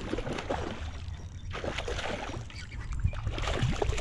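A hooked landlocked salmon thrashing and splashing at the surface beside a kayak, water slapping repeatedly, growing louder near the end as the fish is scooped into a landing net.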